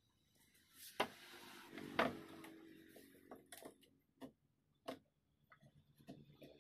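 Scattered sharp clicks and knocks from handling a wooden picture frame on a wooden table and working scissors along its edge, with the two loudest knocks about one and two seconds in.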